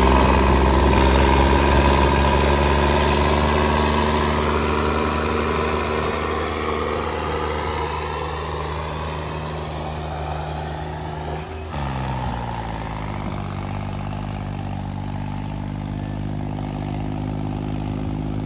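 Tractor diesel engines of John Deere 5310s running hard under full load in a tractor tug-of-war, a steady drone that slowly fades. About twelve seconds in, the engine pitch drops as the revs fall, then it runs on steadily at the lower speed.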